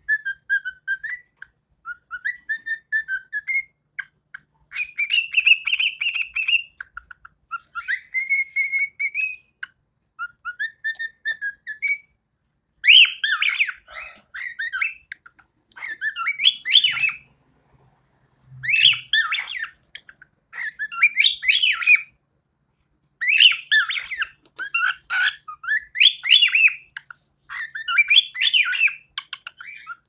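Young cockatiel singing. It starts with whistled phrases separated by pauses, then from about twelve seconds in switches to louder, more broken-up warbling phrases of a second or two each, with short gaps between them.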